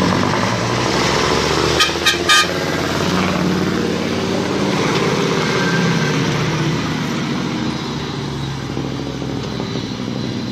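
A heavy vehicle's engine running steadily, with three short horn toots about two seconds in.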